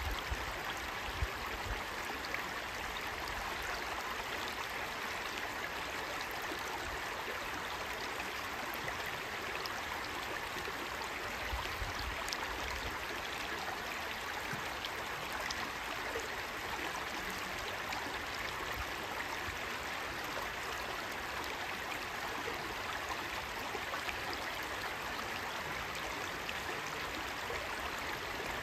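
Shallow rocky stream babbling steadily as water runs over and between stones in small riffles.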